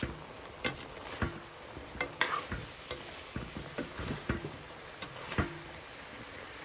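A cooking utensil stirring food in a pot, with irregular knocks and scrapes against the pot's sides over a faint sizzle.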